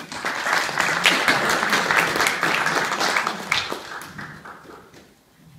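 Audience applauding, many hands clapping at once, fading away about four to five seconds in.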